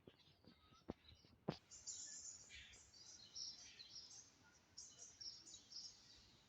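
Faint chirping of small birds in quick short bursts, starting about two seconds in, after two sharp clicks.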